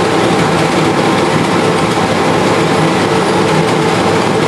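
Wurlitzer theatre organ's electric blower running: a steady, loud rush of air over a low, even hum.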